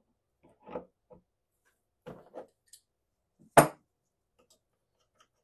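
Adjustable steel wrench clinking and knocking against a reloading die's locking ring while the ring is loosened: a few small knocks, then one louder, sharper clank about three and a half seconds in.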